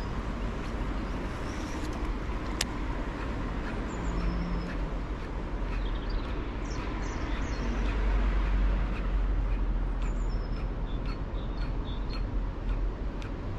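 Steady low outdoor rumble, swelling slightly about eight seconds in, with a few short high bird chirps over it.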